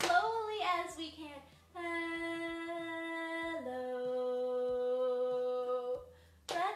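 A woman singing a children's hello song unaccompanied. After a few quick sung words she draws out one long 'hello' for about four seconds, held on a steady note that then steps down to a lower one.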